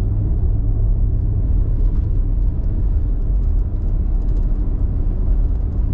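Nissan Y62 Patrol driving along a sealed road, heard from inside the cabin: a steady low rumble of engine and tyre noise.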